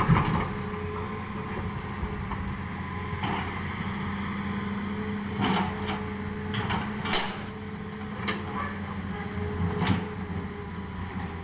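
Excavator diesel engine running steadily, with sharp knocks and clanks of stone and steel, loudest at the start, then several more from about 5 to 10 seconds in, as rocks are loaded.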